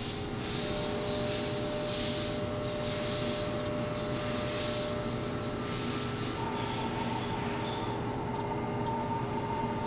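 Steady hum of machine-shop equipment, with a few steady tones over an even noise; a higher steady tone joins about six seconds in.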